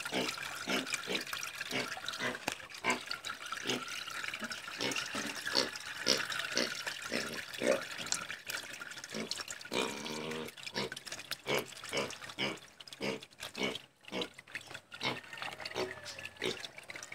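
Wet squelching and squishing as a plastic-covered hand squeezes fermented fish in a wire-mesh strainer, pressing out the fish amino acid liquid, in many short irregular squeezes. A short pitched sound about ten seconds in.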